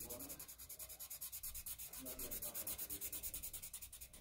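A Sharpie marker that is running out of ink rubbing on drawing paper in quick back-and-forth shading strokes, about eight a second.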